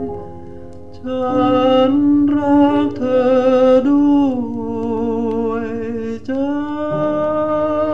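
A Thai popular song playing from a mono vinyl record: a melody of long held notes with vibrato over accompaniment, quieter for the first second and then fuller.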